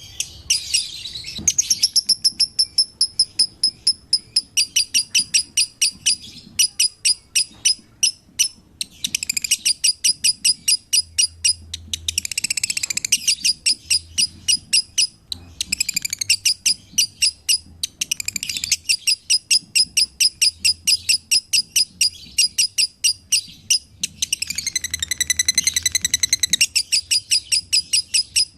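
Pet lovebird chirping in long, fast runs of sharp high notes, several a second, broken by short pauses and a few denser warbled stretches.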